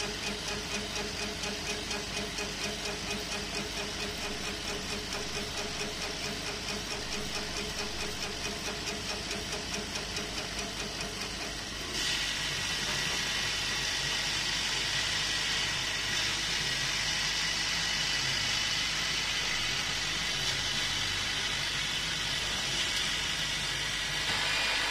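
CO2 laser engraver running: the laser head's gantry motors drive it back and forth in a regular pulse about three times a second over steady machine noise. About halfway through the sound changes suddenly to a steadier, brighter hiss with a steady whine.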